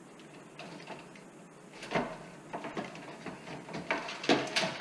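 Handling noise from wires and a plastic connector being worked inside a sheet-metal fluorescent light fixture: a few sharp clicks and knocks, loudest about two seconds in and again near the end.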